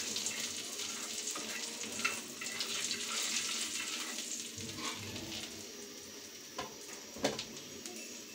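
Nigella seeds sizzling in hot mustard oil in a pan as they are lightly fried and stirred with a spatula; the sizzle slowly dies down, with a couple of light spatula knocks near the end.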